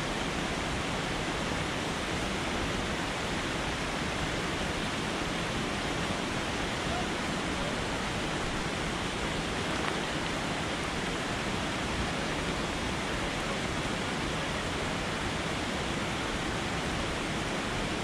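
Fast-flowing mountain water rushing steadily, an unbroken, even roar of white water.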